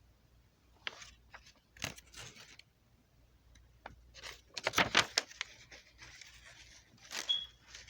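Handling noise: irregular clicks, taps and short scraping sounds, busiest around five seconds in.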